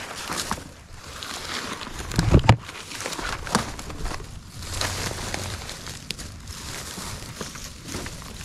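Rustling and crackling of forest undergrowth and leaf litter as someone moves through it on foot, with a loud low bump on the microphone about two seconds in.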